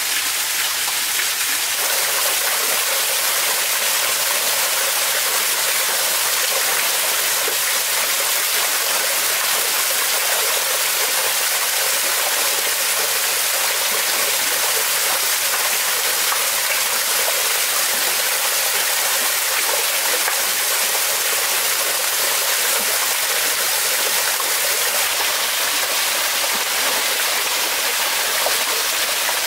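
Steady rush of a small waterfall pouring into a rocky pool, with the water splashing as a person bathes in it.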